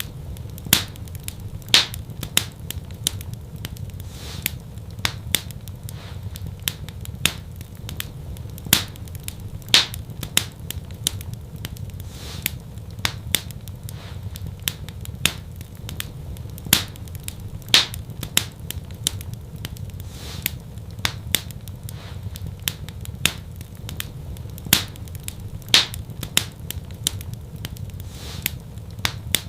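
Wood fire crackling in a fireplace: a steady low rumble of burning with irregular sharp pops and snaps, several a second, some much louder than the rest.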